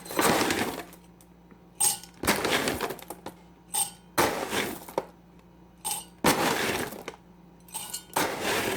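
Scoops of whole coffee beans poured into a stainless steel grinder bowl, rattling in five short pours about two seconds apart, each with a small click of the scoop just before.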